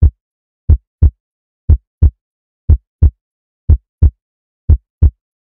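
Deep, heartbeat-like double thumps in the closing music, one pair about every second, with silence between them.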